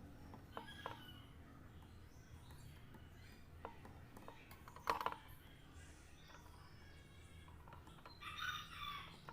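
Faint clicks and knocks, the loudest a sharp knock about five seconds in, and a short bird call near the end.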